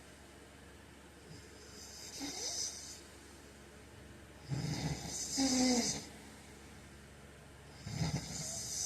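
A man snoring in his sleep: three snoring breaths about three seconds apart, the first faint and the middle one loudest, with a whistling, wavering tone in it.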